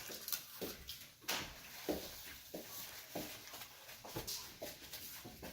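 Faint eating sounds: a string of soft mouth clicks and smacks while someone chews a burger.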